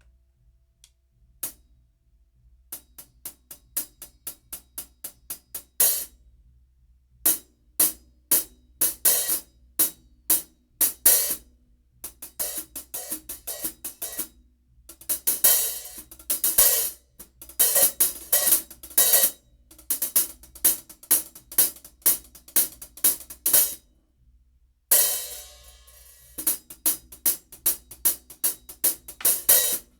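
13-inch fusion hi-hat, which the owner takes to be Sabian AA, played alone in runs of short, even strokes separated by a few brief pauses. About 25 s in there is one longer, ringing wash before the short strokes return.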